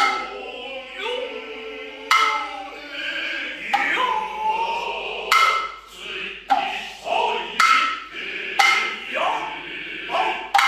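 Noh hayashi music: sharp, ringing strikes on the hand drums (ōtsuzumi and kotsuzumi), about one every second or so at uneven spacing, with the drummers' drawn-out vocal calls (kakegoe) sliding in pitch between the strikes.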